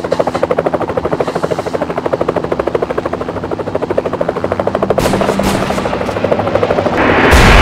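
Helicopter rotor blades chopping, a fast, even pulsing beat that grows fuller and louder about five seconds in. Near the end a loud rushing burst of noise comes in over it.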